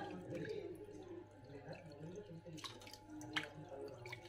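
Water in an aquarium tank splashing and dripping as a hand moves goldfish about in a net, with a few sharp drips, the loudest about three seconds in. A steady low hum runs beneath.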